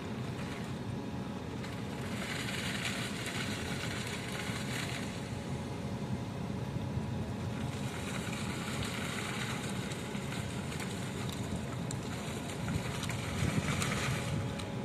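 A machine engine running steadily, with three spells of rushing hiss laid over the drone.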